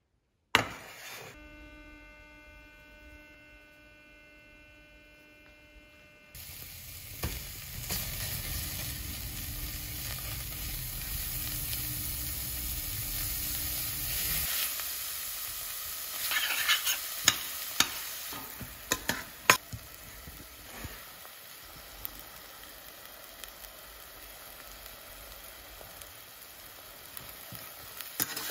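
Diced onion and butter sizzling in a stainless-steel pot on an induction hob while a metal spoon stirs and clicks against the pot. It opens with a knock as the pot is set down and a faint steady hum. The sizzle sets in about six seconds in, and the spoon's clicks come from about halfway through.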